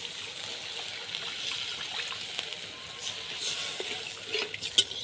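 Water poured into a hot pan of fried spice paste, hissing steadily as it hits the oil, with a few sharp metal clinks near the end.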